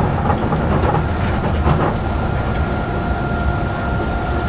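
Astram Line rubber-tyred guideway train running, heard from inside the cab: a steady low rumble from the tyres and running gear. A thin steady high tone joins about two seconds in as the train draws alongside the station platform.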